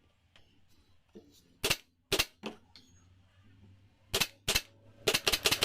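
Staple gun firing staples into a sofa frame: single sharp shots a second or so apart, then a fast run of about eight shots near the end.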